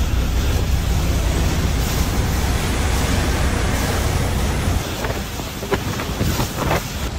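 Wind noise on the microphone while a snow brush sweeps heavy snow off a car's windshield. The low rumble eases about five seconds in, and a few short scrapes follow near the end.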